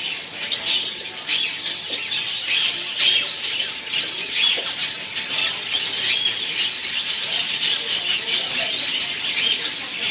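A mixed flock of caged finches, mostly Gouldian finches, chirping continuously with many short, high calls overlapping.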